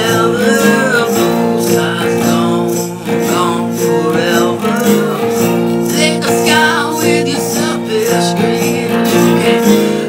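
Song music: strummed acoustic guitar chords with a wavering melody line above them.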